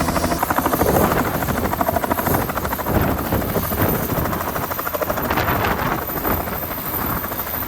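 Tour helicopter's rotor making a loud, rapid chopping.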